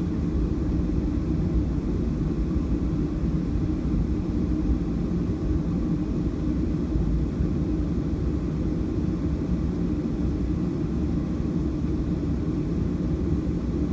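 Steady low rumble inside the cabin of a Boeing 737-700 taxiing, its CFM56-7B engines running at low taxi power.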